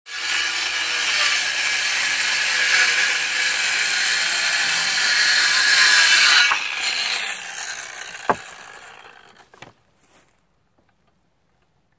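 Ryobi cordless circular saw cutting through a wooden post for about six and a half seconds, then winding down over the next few seconds as the blade slows. A single sharp knock comes about eight seconds in.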